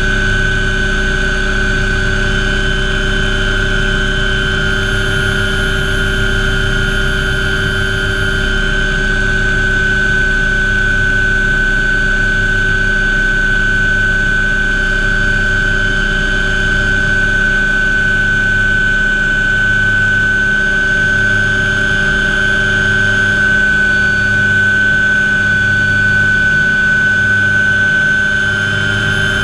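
MD500 helicopter's turboshaft engine and rotor running steadily, heard inside the cockpit during the approach to land on a boat's helideck. A steady high turbine whine sits over a low hum that pulses about once a second.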